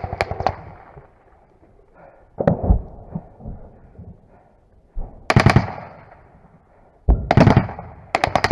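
Close automatic gunfire in short bursts, each a rapid run of sharp shots: one right at the start, then three more in the second half. Two heavy thumps fall between the bursts.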